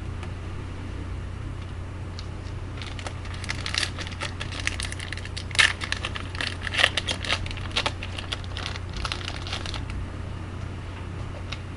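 Foil wrapper of a hockey card pack being torn open and crinkled, starting about three seconds in and stopping near the end, over a steady low hum.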